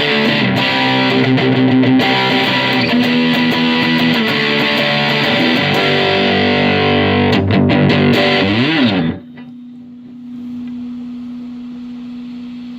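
Distorted electric guitar from a Jackson Dinky's EMG 85 bridge pickup, played through a tweed 4x10 tube amp with 5881 power tubes in cascade mode, both volumes at about six. Sustained riffing with a quick pitch swoop near the end of the playing, which then stops abruptly just after nine seconds, leaving one quiet steady tone ringing.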